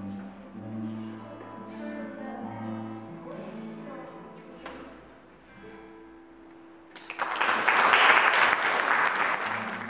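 Acoustic guitar played solo, its closing chords ringing and fading away over the first several seconds. About seven seconds in, the audience starts applauding loudly for about three seconds.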